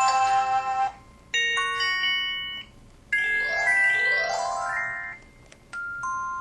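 Built-in alert sound effects of an MS300 mobile phone playing in turn through its small speaker: a chiming chord that stops about a second in, a short chime, a quick rising run of electronic tones, then a two-note beep near the end.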